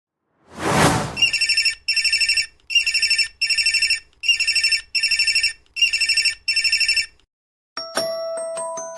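Mobile phone ringtone imitating a classic telephone ring: a short whoosh, then a warbling electronic trill in four double rings. Near the end a different ringtone starts with a few chiming notes.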